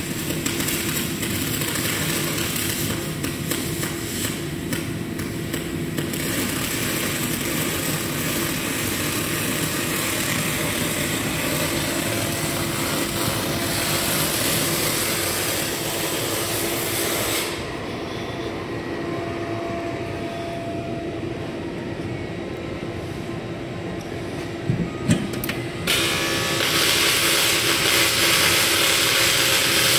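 Cloos GLC 503 CAPO MIG welding set switched on and running idle: its cooling fan blows with a steady hum under it. A few short knocks come just before the fan noise gets louder near the end.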